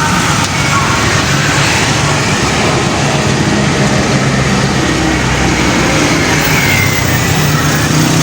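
A large bus passing close by on a busy road: its engine runs low under loud, steady tyre and traffic noise.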